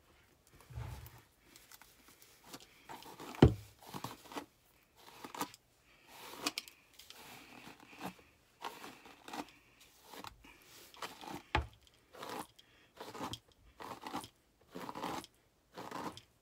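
A brush raking through a long synthetic wig: a string of short scratchy strokes, irregular and mostly more than one a second. A sharper knock stands out about three and a half seconds in.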